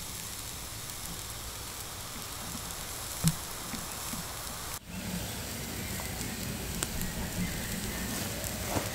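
Food sizzling in hot olive oil: a steady frying hiss with a few sharp crackles, the loudest about three seconds in.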